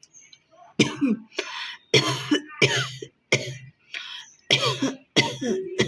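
A woman coughing hard and clearing her throat in a rapid series of about eight harsh coughs, roughly one every half second, starting about a second in. These are deliberate coughs to bring up phlegm.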